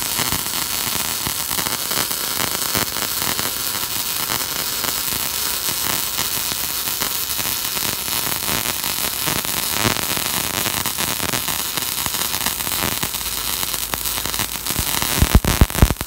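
MIG welding arc of a Fuji 270A welder running on thick steel plate under CO2 shielding gas: a steady crackling hiss of wire and spatter, with a few sharper pops near the end.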